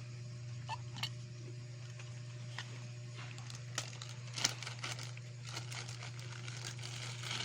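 Hands handling action-camera packaging and accessories: scattered small clicks and light crinkling, sharpest a little under four and at about four and a half seconds in, over a steady low hum.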